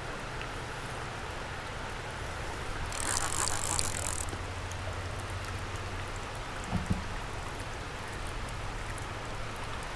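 Steady rain falling on creek water. About three seconds in, a brighter hiss rises over it for a little over a second, and a small knock comes near the end.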